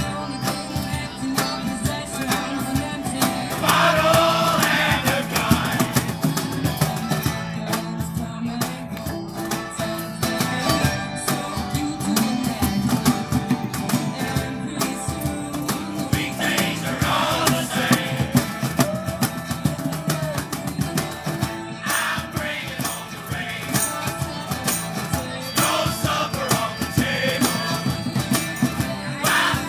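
Acoustic street band playing a folk song live: strummed guitars, banjo and mandolin over a steady cajón and hand-drum beat, with voices singing.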